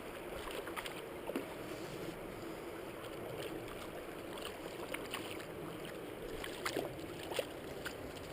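River water running steadily, with scattered faint clicks over it.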